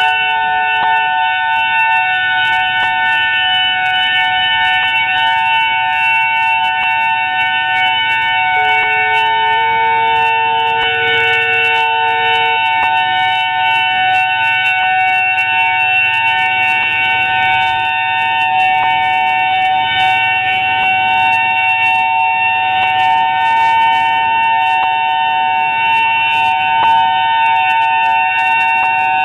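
Emergency Alert System attention signal: a loud, steady two-tone alarm held at a fixed pitch without a break, announcing a tornado warning.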